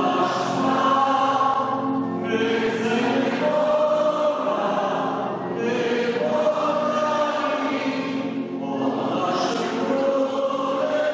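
Many voices singing a Polish church hymn together, in long sustained phrases of about three seconds with short breaks between them.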